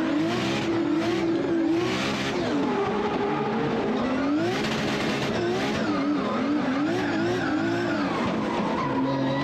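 Nissan Silvia drift car's engine revving hard, its pitch rising and falling again and again as the throttle is worked through a slide, with tyre squeal mixed in. Near the end the engine settles to a steady pitch.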